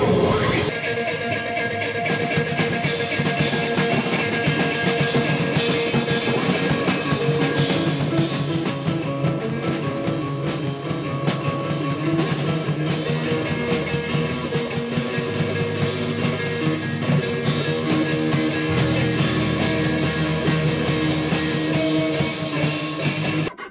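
Rock-style music with drum kit and guitar, dense and continuous, cutting off abruptly near the end.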